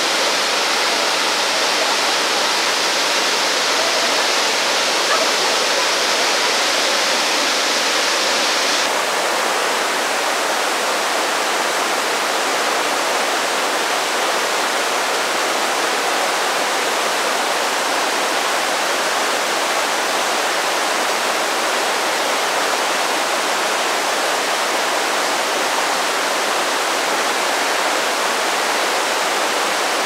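Jōren Falls, a 25 m waterfall, pouring into its plunge pool: a steady, unbroken rush of falling water. About nine seconds in the sound turns slightly duller.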